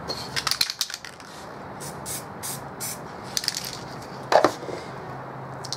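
A few quick, short bursts of spray from an aerosol spray-paint can, among clicks and knocks of cans being handled, with a sharper knock about four seconds in.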